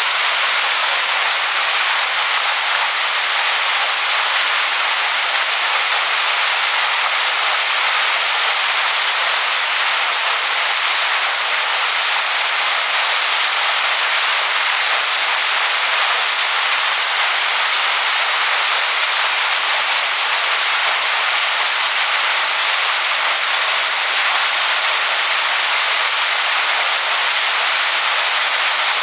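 Waterfall pouring onto rocks: a loud, steady rush of water, bright and hissy, without any deep rumble.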